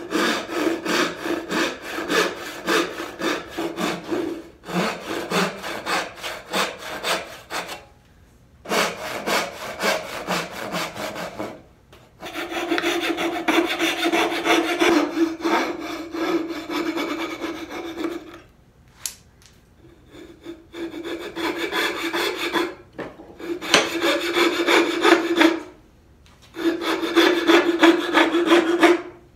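Hand-sawing a wooden dovetail joint: a backsaw cuts down the lines in runs of quick strokes, then from about twelve seconds in a coping saw cuts out the waste between the pins, its strokes carrying a steady ringing tone. The sawing stops for a second or two between runs.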